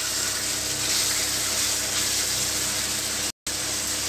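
Thin beef slices sizzling in hot oil with fried onions, a steady hiss as the meat is seared. The sound cuts out for an instant a little after three seconds.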